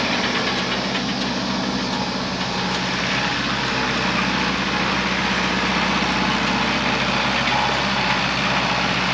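International Harvester 574 tractor engine running steadily at a constant speed.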